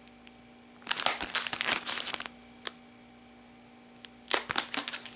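Clear plastic soft-bait package crinkling as it is handled and turned, in two spells of rustling: one about a second in, lasting about a second and a half, and a shorter one near the end.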